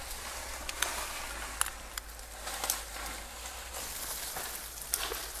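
Leaves and twigs rustling and crackling as the dense, thorny bush is pushed aside, with several sharp snaps of twigs.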